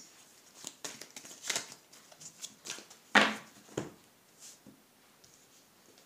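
Hand-shuffled tarot cards: short swishes and slaps of card against card, the loudest slap about three seconds in, then lighter handling as a card is drawn from the deck.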